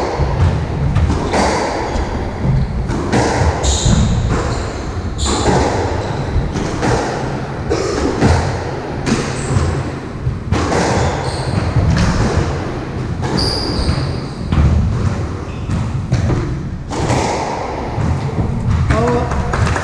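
Squash rally: a steady run of sharp ball strikes off the rackets and thuds off the court walls, with footsteps and the short squeaks of shoes on the wooden floor, echoing in the enclosed court.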